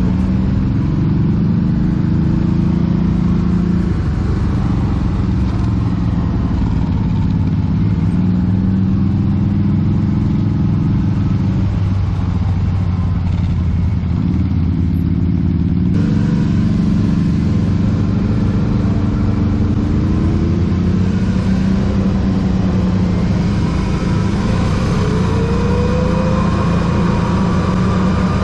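ATV engine running under way, its pitch rising and falling as the throttle is opened and eased, with rising revs near the end. The sound changes abruptly about halfway through.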